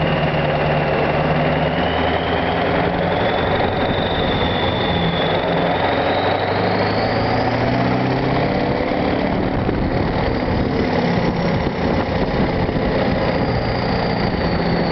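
1997 Ford F-250's 7.3 L Power Stroke turbodiesel V8 running through straight pipes, with a high turbo whistle riding over the diesel rumble. The whistle climbs in pitch as the revs rise, fades, then returns near the end.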